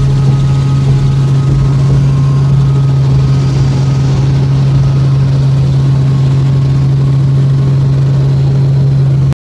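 Helicopter cabin noise in flight: a loud, steady drone of rotor and engine with a strong low hum. It cuts off suddenly near the end.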